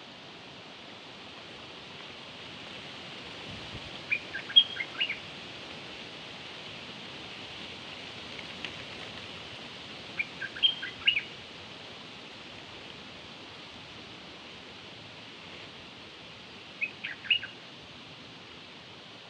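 A small bird's call, given as three short clusters of quick high chirps about six seconds apart, over a steady hiss. It is a decoy call recording for luring this bird (Thai นกดอกแตง).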